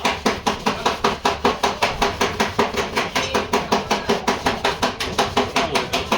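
Rapid, evenly paced hammer strikes on sheet metal, about six a second, with a faint ring from the panel: a car body panel being beaten out.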